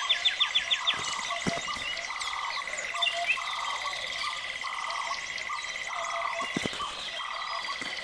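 Forest ambience: a bird's fast trill of repeated notes ends just under a second in. It sits over a steady high-pitched trill, scattered short bird chirps and a low call repeated about once a second.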